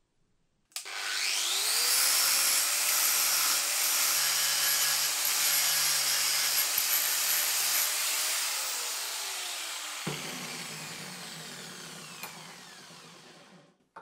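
Angle grinder switched on, its whine rising quickly to full speed and running steady, then switched off and winding down with a slowly falling pitch. A short knock comes as it winds down.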